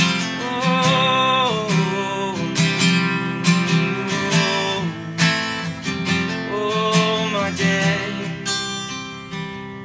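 Gibson acoustic guitar strummed in a steady rhythm, growing softer near the end.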